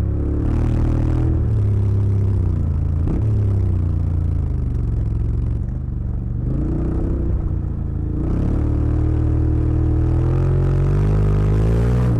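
Honda X-ADV 750's parallel-twin engine under way on a gravel track, its pitch falling and rising several times as the throttle is eased and opened, with a dip in loudness around six and eight seconds in.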